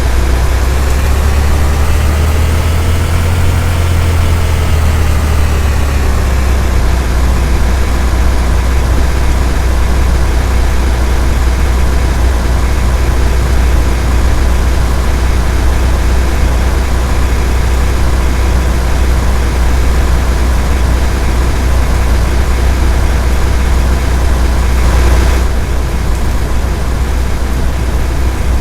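Vehicle engine and road noise, a steady low rumble, with the engine's pitch rising and then falling over the first few seconds.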